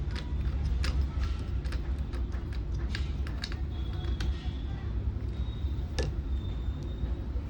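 Scattered small clicks and taps of hand-tool work on a circuit board, thick for the first few seconds and sparser after, over a steady low hum.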